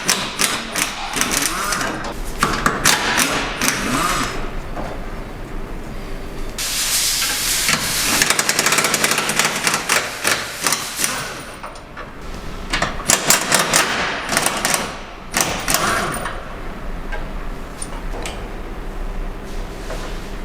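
Impact wrench hammering in several bursts of rapid blows, undoing the car's subframe bolts.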